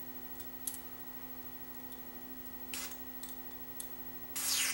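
Aerosol can of old tetrafluoroethane-propelled Neutrol contact cleaner being sprayed onto a cassette deck's switches: a brief hiss about three seconds in and a longer, louder one near the end, with light clicks of handling in between.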